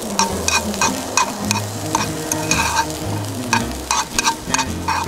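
Bean sprouts sizzling in a frying pan on a single-burner camp stove as they are stirred and tossed with chopsticks, with many quick clicks of the chopsticks against the pan.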